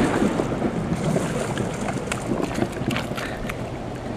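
Steady rush of water and wind buffeting the microphone, with a few light clicks scattered through it.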